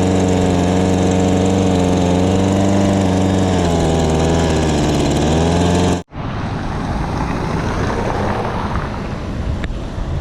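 Heavy tow truck's diesel engine running steadily close by, its pitch sagging and recovering briefly about four to five seconds in. About six seconds in the sound cuts off abruptly and gives way to a rougher, noisier rumble with wind.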